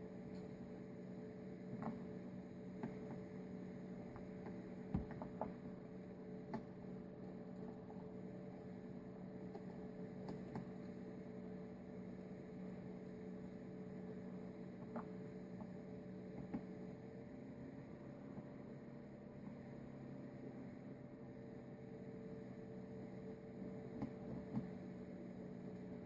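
Steady low electrical hum with scattered faint clicks and taps.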